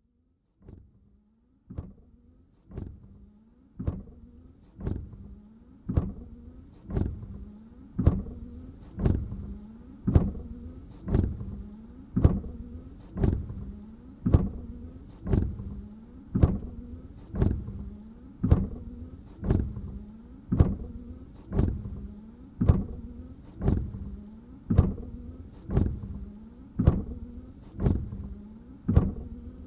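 Car windshield wipers running steadily, about one sweep a second. Each stroke starts sharply and dies away over a steady motor hum. The sound fades in over the first several seconds.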